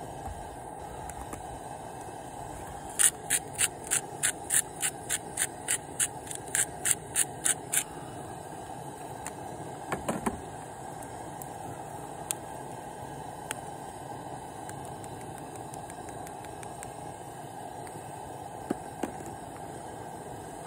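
Seafood broth simmering in a cast iron skillet on a propane camp stove burner, a steady hiss. From about three seconds in, a run of about fifteen sharp, high ticks, about three a second, lasts some five seconds. A short knock comes near the ten-second mark.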